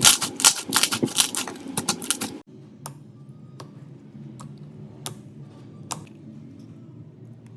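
Slime being worked by hand, giving a quick run of sharp crackling clicks and pops. About two and a half seconds in it cuts to a quieter take, where single clicks come every half second or so over a low hum.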